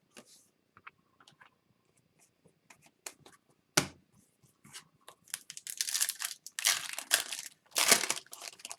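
Foil wrapper of a hockey card pack being torn open and crinkled: scattered small crackles, a sharp click a little before four seconds in, then a dense run of tearing and crinkling over the last three seconds.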